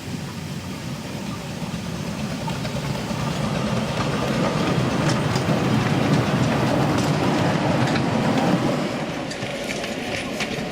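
Miniature railway train passing on the track, growing louder to a peak about two-thirds of the way through and then easing off, with short clicks of the wheels over the rail joints.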